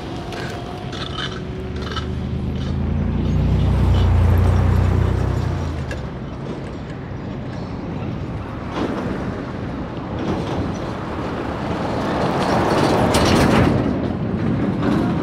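Road traffic passing close by. A heavy vehicle's engine hum grows louder, peaks about four seconds in and fades, then tyre and wind noise from passing cars swells near the end.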